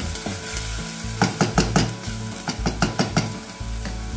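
Chopped onion and garlic sizzling in hot oil in a stainless steel pot while a wooden spoon stirs them, with runs of quick knocks and scrapes of the spoon against the pot about a second in and again near three seconds.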